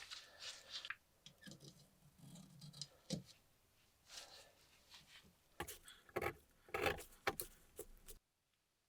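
Small metal handling sounds from a steel pocket knife: irregular scrapes and short clicks, with a run of sharper, louder clicks past the middle, cutting off abruptly near the end.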